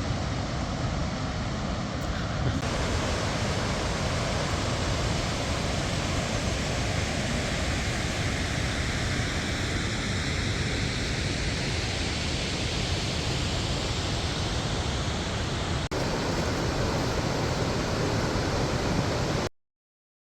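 Steady rushing of Gullfoss, a large waterfall, an even wall of water noise heavy in the low end. It cuts out briefly near the end.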